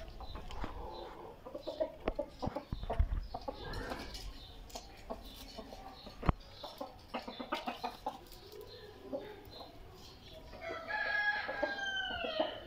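Domestic chickens clucking with a few sharp knocks, then a rooster crows once near the end, a long call that falls in pitch as it closes.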